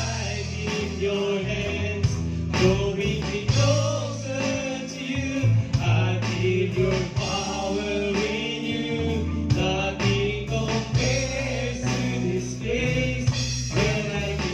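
Live gospel worship song: a man singing lead through a microphone over electric keyboard accompaniment and a steady bass line.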